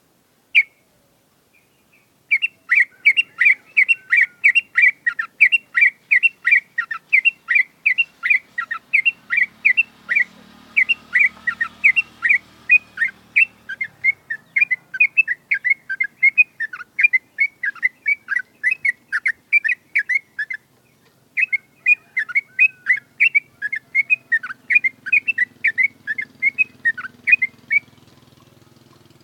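Yellow-vented bulbul (trucukan) singing a long, rapid string of short, sharp, repeated notes, about two to three a second. This is the fast 'ngewerr' (ropel) delivery that keepers prize as a sign of a fit, fighting-ready bird. It pauses briefly about two-thirds of the way through and then carries on.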